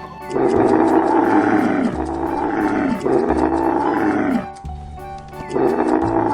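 A camel calling: four long, loud calls, each falling in pitch at its end, the last starting near the end. Background music runs underneath.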